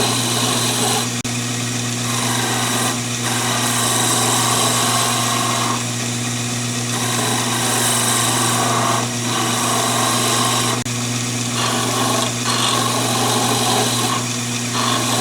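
Conover wood lathe running with a steady motor hum while a turning tool cuts the spinning wooden chair-leg blank, the cutting noise swelling and dropping as the tool meets and leaves the wood.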